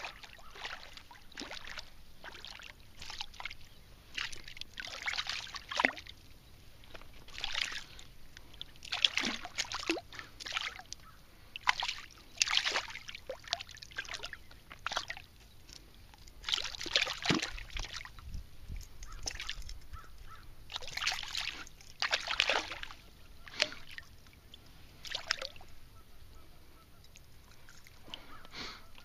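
Geese honking, many separate short calls at an irregular pace.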